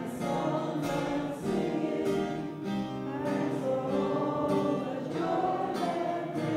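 Community choir of people living with aphasia singing a song together, several voices holding long notes and moving from note to note.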